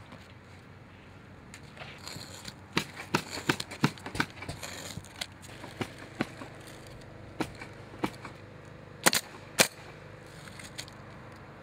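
Pneumatic roofing nailer firing nails into asphalt cap shingles along a roof ridge: a string of single sharp shots at irregular intervals, the two loudest about half a second apart near the end.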